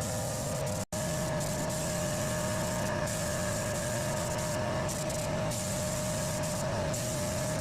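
Compressed-air spray-painting equipment running steadily: a continuous rushing hiss with a constant hum, cut off for an instant about a second in.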